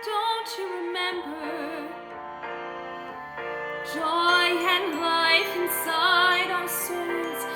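A woman singing a slow, classical-style melody with vibrato over a sustained instrumental accompaniment. Her voice eases off for a couple of seconds in the middle and comes back louder about four seconds in.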